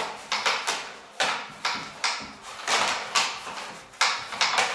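Wooden discs of a homemade pucket game being shot across the wooden board, knocking against its walls and each other in a quick, irregular run of sharp clacks, a few a second.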